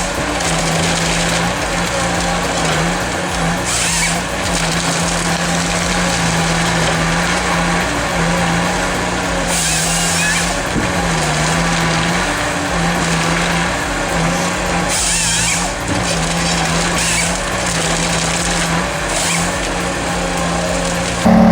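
Wood chipper's engine running steadily with a continuous drone, with short hissing bursts every few seconds. The sound changes abruptly near the end.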